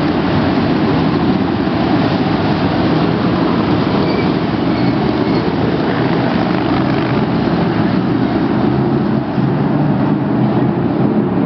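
Sprint car engines running hard in a race, a loud steady din with no let-up.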